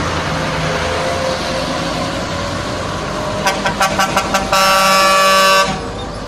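Heavy truck engines running on a climb, then a quick run of short air-horn toots about three and a half seconds in, followed by one long air-horn blast of about a second.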